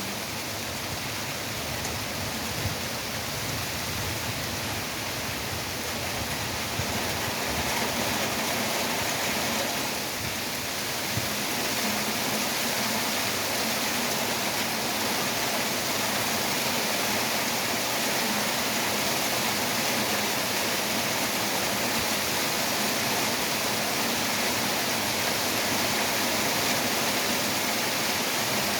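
Heavy rain falling steadily as a dense, even hiss that grows slightly louder about eleven seconds in.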